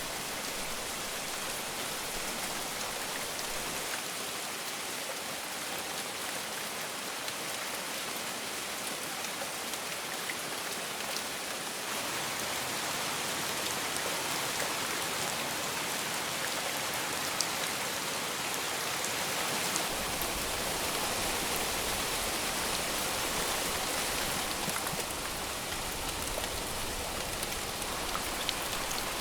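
Steady heavy rain falling, a dense even hiss with scattered individual drop taps. It grows a little louder about twelve seconds in and fuller in the low end a few seconds later.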